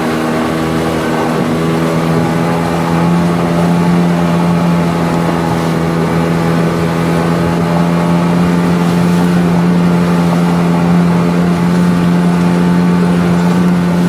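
A 9.8 hp outboard motor running under way at a steady pitch, growing slightly louder about two seconds in.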